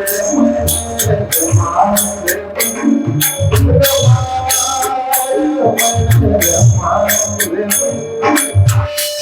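Devotional kirtan music: small hand cymbals ringing on a steady beat over a drum and held melody tones.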